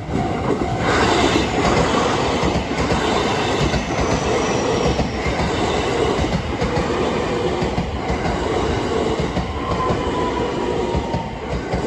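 Electric train running through a level crossing, its wheels clacking in a quick rhythm over the rail joints. The crossing's warning bell is ringing at the start and is drowned out when the train arrives about a second in.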